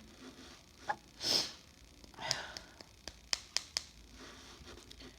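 A woman sneezing once, about a second in, then sniffing, with a few sharp clicks in the second half. The sneezing is brought on by snuffing chhinkni, a herbal sneezing powder.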